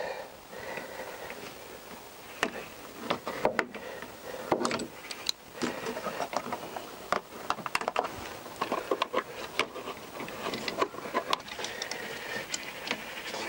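Irregular clicks, taps and rubbing as hands and a hand tool work the metal spring hose clips and rubber coolant hoses on a plastic coolant header tank.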